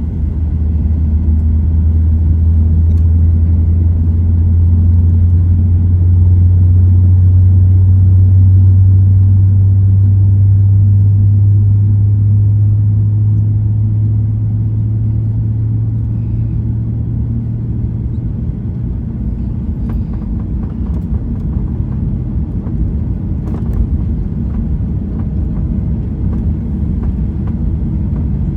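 Boeing 737-800 jet heard from inside the passenger cabin: a deep, steady rumble of its CFM56 engines and airframe. The rumble swells, is loudest about a third of the way in, then eases off. There are a few light clicks near the end.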